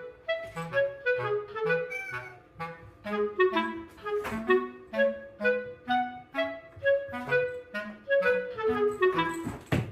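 Background music: a quick melody of short notes over a steady bass line, with a falling glide near the end.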